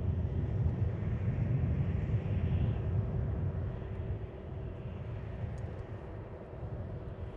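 Low jet rumble of a C-5M Super Galaxy's four turbofan engines as the aircraft flies past, with a faint steady tone above it; the noise fades from about halfway through as the aircraft moves away.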